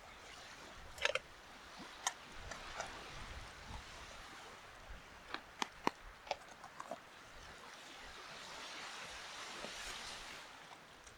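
Beach campfire crackling, with scattered sharp pops, over a steady wash of surf that swells up and then fades near the end.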